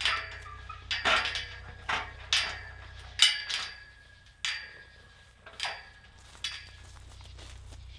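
Tubular steel farm gate clanking and ringing as a hiker climbs over it: about eight metallic knocks from boots and hands on the rails, each leaving a short ring, the loudest about three seconds in.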